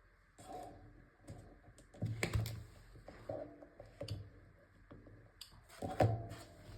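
Irregular taps and clicks of phones being handled, with a few louder knocks about two seconds in and again near six seconds.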